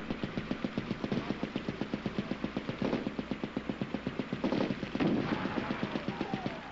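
Machine guns firing long, continuous automatic bursts at about eight shots a second. About five seconds in there is a heavier blast as the target explodes.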